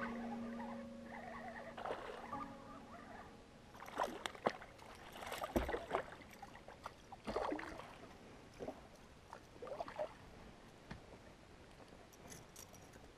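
Water splashing in short, scattered bursts as a hooked fish thrashes at the surface beside a kayak hull, with light knocks of handling in the boat. The splashes are loudest a few seconds in.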